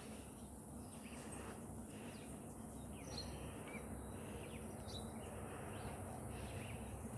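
Quiet outdoor ambience: a steady faint background hiss, with scattered short bird chirps from about three seconds in.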